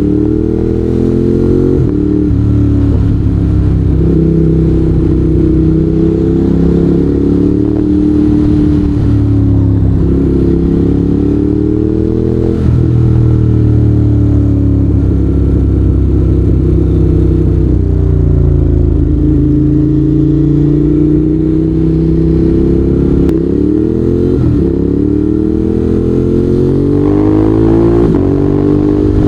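Ducati Monster 821's 821 cc L-twin engine running loud under way, its pitch climbing and falling with the throttle. The pitch drops suddenly a few times, then climbs again.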